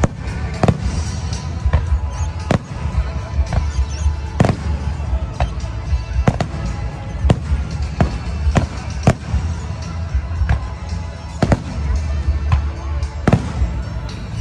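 Aerial fireworks bursting overhead, sharp bangs about once a second, over music with a heavy bass.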